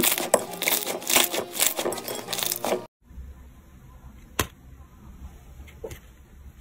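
Thick slime being pressed and squeezed by hand, giving off dense crackling and popping clicks. These cut off abruptly about three seconds in, leaving a much quieter stretch with a few faint clicks and one sharp click.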